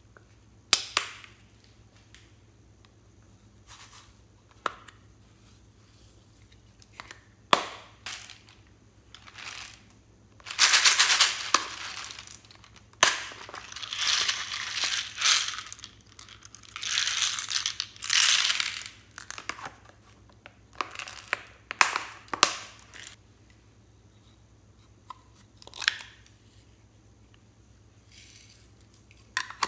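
Hands handling small plastic containers over a plastic mixing bowl while making slime: sharp clicks and taps of lids and cases spread through, with several seconds of dense crinkly rustling in the middle.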